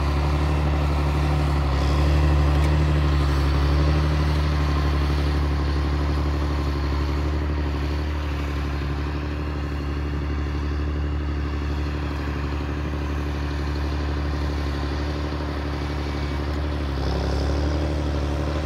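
An engine running steadily with a low, even drone, swelling slightly about two seconds in and again near the end.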